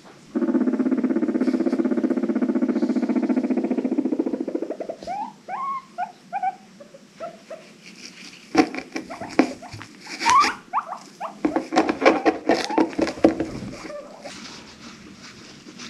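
Guinea pig making a long, low, pulsing rumble for about four seconds. This is followed by a run of short rising squeaks, then a stretch of quick clicks mixed with more squeaks.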